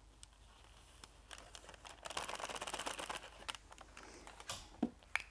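A small jar of black embossing powder being handled on a craft table. There is a quick run of light clicks and rattles about two seconds in, and a few sharp knocks near the end as it is set down.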